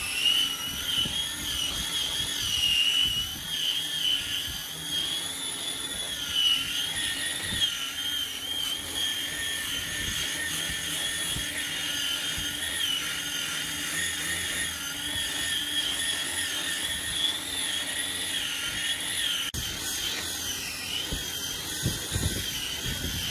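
Handheld electric angle grinder fitted with a sanding disc, running with a steady high whine that wavers slightly in pitch as it is worked over a solid-wood slab. The sound changes abruptly near the end.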